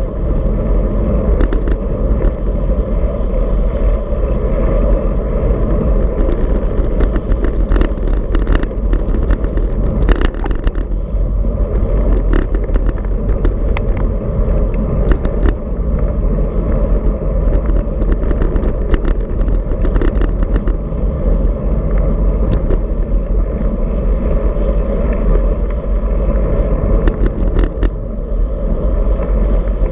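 Wind rumbling steadily on a handlebar-mounted camera's microphone while riding a road bicycle at speed, mixed with road noise, with scattered sharp clicks and rattles.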